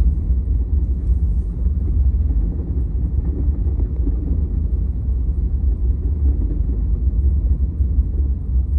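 Steady low rumble inside a moving truck's cab: engine and tyre noise while driving on a snow-covered road.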